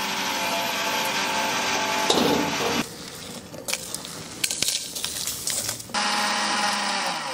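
Dry roasted whole spices click and rattle as they are pushed by hand into the steel jar of an electric mixer grinder. About six seconds in, the mixer grinder is switched on and runs with a steady hum and hiss, grinding the spices to powder. A similar steady machine hum fills the first three seconds.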